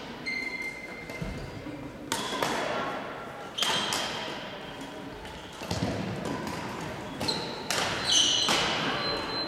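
Badminton rackets striking shuttlecocks, about half a dozen sharp hits spread irregularly, echoing in a large sports hall, with short high squeaks of court shoes on the floor between them.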